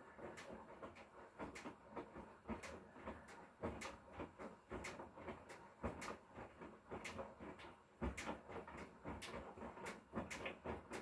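Hotpoint Core 8 kg inverter-motor washing machine mid-wash, the drum turning so the load tumbles, with irregular faint knocks and clicks, a couple a second.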